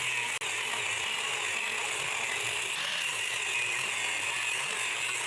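Wire-feed (MIG) welding arc crackling steadily as a bead is run, a dense even sizzle.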